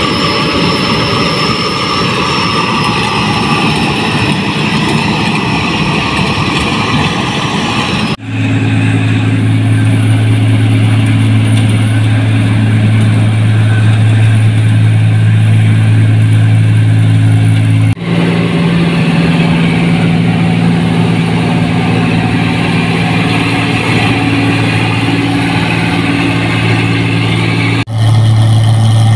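New Holland rice combine harvesters running steadily, heard as several clips joined end to end, the sound changing abruptly three times. The later clips carry a strong, steady low engine hum.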